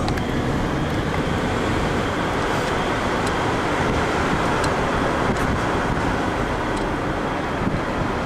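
Steady road and engine noise heard from inside a moving car.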